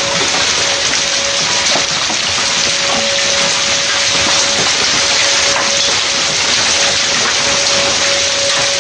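Heavy thunderstorm downpour pelting down: a dense, steady hiss with many small hits mixed in. A steady tone runs underneath, breaking off briefly now and then.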